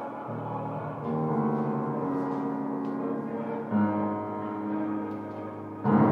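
Improvised music for acoustic upright piano and live generative AI electronics (RAVE): sustained, ringing gong-like tones. New swells of sound come in about a second in, again near four seconds, and loudest near the end.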